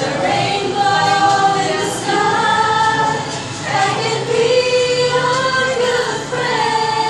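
Women's voices singing a slow song together, with long held notes between short breaks.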